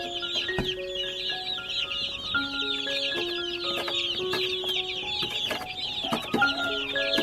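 A large brood of baby chicks peeping nonstop, a dense chorus of short, high, falling chirps, over background music with a slow melody of held notes.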